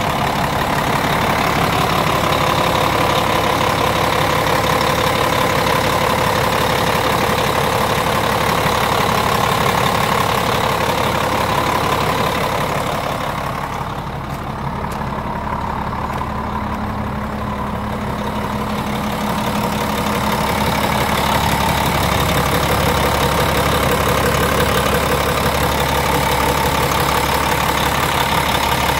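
2001 Volvo VNL semi truck's diesel engine idling steadily, heard close up in the open engine bay. It sounds somewhat fainter for several seconds about halfway through.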